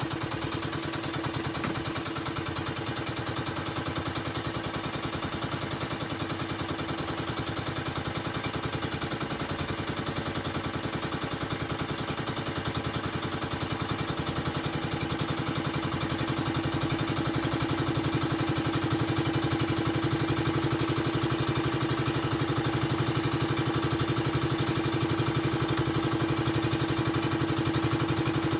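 A small engine running steadily, getting a little louder about halfway through.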